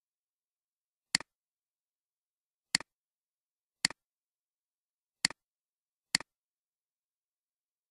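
Computer mouse clicking five times, each a sharp press-and-release click, unevenly spaced about a second apart, with total silence between.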